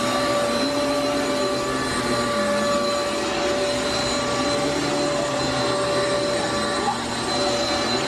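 Eureka AirSpeed Exact Pet upright vacuum cleaner running steadily as it is pushed over carpet: a rush of air with a steady motor whine.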